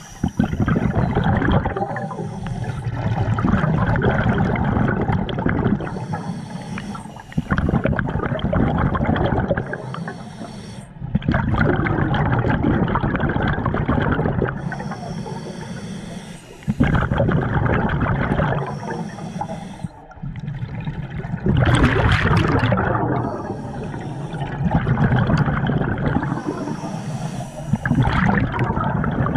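Scuba diver breathing through a regulator underwater: a short hiss on each inhale, then a longer burst of bubbling on each exhale, repeating about every four seconds.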